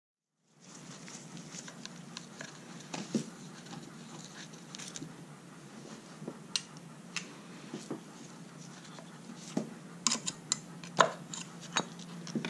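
Valve cover on a Troy-Bilt four-cycle string trimmer engine being worked loose and lifted off by hand: scattered clicks and knocks, coming quicker and louder in the last few seconds, over a steady low hum.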